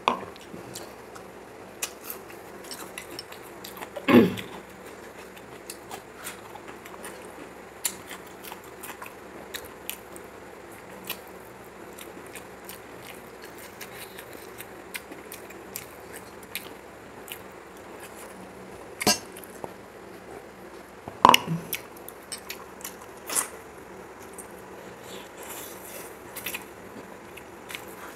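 Close-miked eating by hand: chewing and mouth sounds of rice and chicken curry, with many small clicks of fingers and food against a metal plate. Two louder knocks stand out, about 4 seconds in and about 21 seconds in.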